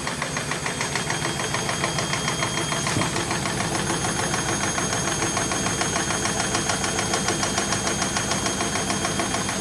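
Washing machine on its spin cycle, the drum shaking hard with a steady, fast, even rattle: heavy vibration in the spin despite the freshly repaired shock-absorber dampers.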